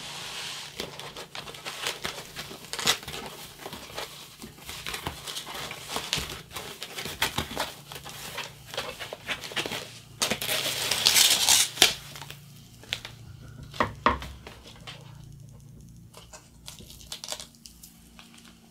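Plastic protective wrapping crinkling and rustling as a stenotype machine is pulled out of its bag, loudest about ten seconds in. A few sharp knocks follow a couple of seconds later, then quieter light handling.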